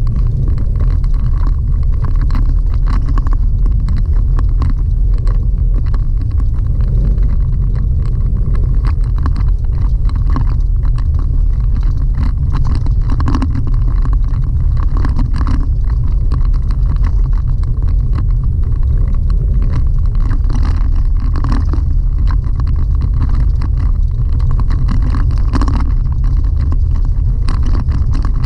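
Road noise heard inside the cab of a Chevy Colorado ZR2 pickup driving on a gravel road: a steady, deep rumble from the tyres and running gear, with scattered small ticks and rattles.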